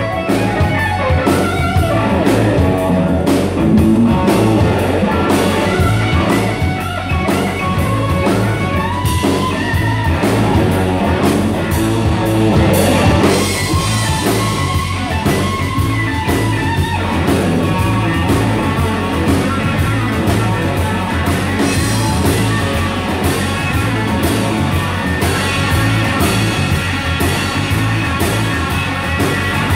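Live rock band playing, an electric guitar out in front over drums and bass guitar.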